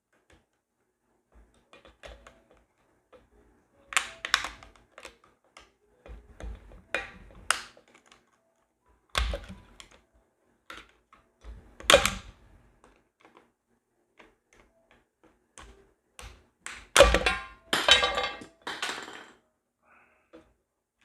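Irregular plastic clicks, snaps and knocks as the snap-fit housing of a Tesla Model 3 steering-column clock spring is pried apart by hand, with a dense cluster of clicks near the end.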